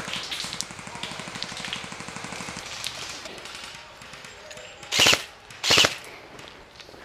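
Airsoft guns firing on full auto: a fainter rapid clatter for the first couple of seconds, then two loud short bursts close together about five seconds in.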